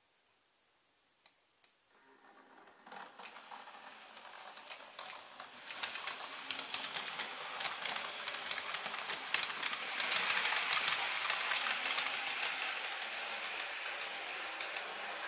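Model train running through the station: a small motor whirring under a rapid clatter of wheels over the rail joints. It builds up from about two seconds in and is loudest around ten seconds, with two faint clicks shortly before it starts.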